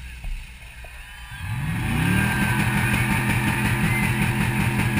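1994 Mercury Grand Marquis's 4.6-litre V8 revving up about a second and a half in and then held steady at high revs, heard from inside the stripped cabin.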